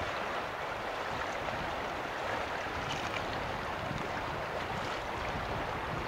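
Steady rush of river water running over a shallow riffle, with uneven low wind rumble on the microphone.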